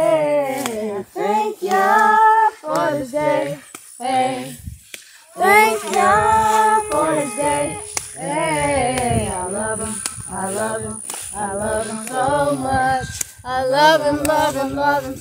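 Voices singing in phrases of held and gliding notes, with short breaks between the phrases.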